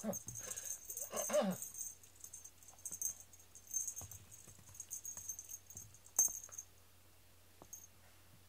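A bell-pepper-shaped cat teaser toy with ribbon streamers rattling and rustling in short bursts as it is swung and dragged over the floor mat, with one sharper hit about six seconds in, then stopping; a brief voice sound comes about a second in.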